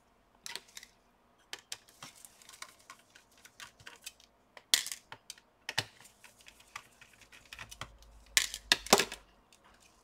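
Irregular small clicks and taps of plastic and metal parts being handled inside an open laptop, as the Wi-Fi antenna cables are unclipped and the cooling fan is lifted out. A few sharper clicks stand out about halfway through and near the end.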